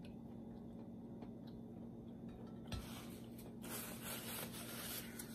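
Paper napkin rustling as it is rubbed across the mouth, in patches over the second half, after a soft thump about two and a half seconds in. A faint steady hum runs underneath.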